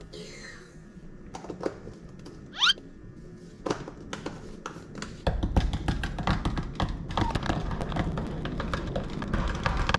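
Light clicks and taps as a small seasoning jar is handled and its lid opened, with a short rising squeak just before three seconds in. From about five seconds in, a louder run of rapid clicks follows as seasoning is shaken from the jar into a jug of beaten eggs.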